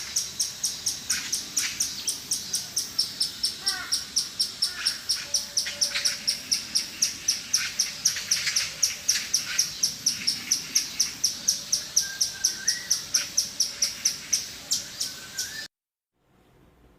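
Squirrel giving a long run of high-pitched chirping calls, about four a second, that cuts off suddenly near the end.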